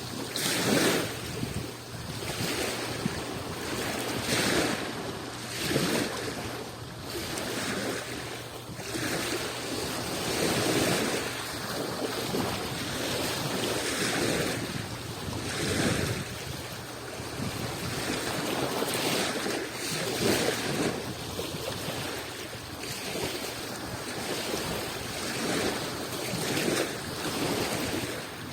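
Adriatic Sea waves breaking and washing on the shore in irregular surges every second or two, with some wind buffeting the microphone.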